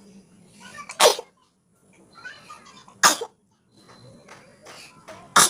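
A woman sneezing three times, about two seconds apart, each sneeze short and loud; the sneezes are set off by sniffing red chili powder.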